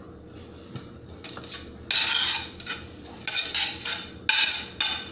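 Metal utensil scraping against a dish as cut avocado is put into it: four scrapes about a second apart, after a quiet first second.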